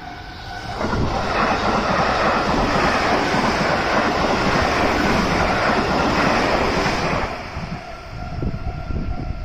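JR West 207 series electric train passing through a railway level crossing. A loud rush of wheels and air starts about a second in and drops away after about seven seconds, leaving a rhythmic clatter of wheels over rail joints. The crossing's warning bell is heard ringing before and after the rush.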